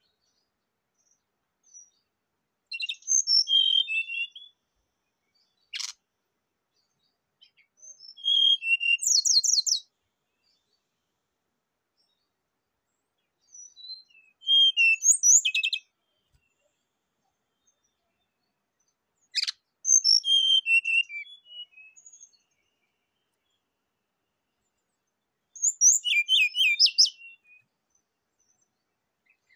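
Brown-chested jungle flycatcher singing in five short bursts of high chirps and quick trills, each lasting a second or two, with silent pauses between them. Two sharp clicks fall between the phrases, one about six seconds in and one near the middle.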